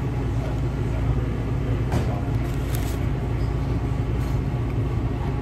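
A steady low hum with a couple of faint clicks about two and three seconds in.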